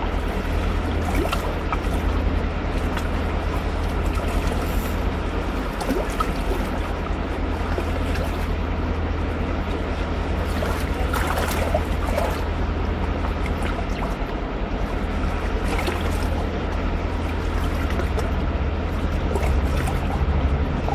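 Steady rush of a fast-flowing river running over riffles and rapids, with a deep low rumble underneath.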